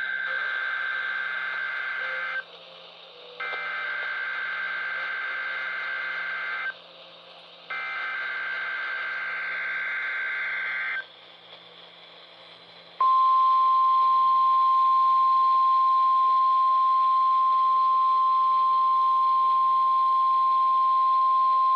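NOAA Weather Radio weekly-test alert received over a radio with background hiss. First come three bursts of SAME digital header data: a warbling buzz about three seconds long each, with about a second between them. About two seconds after the last burst, the steady 1050 Hz warning alarm tone starts and holds loudly.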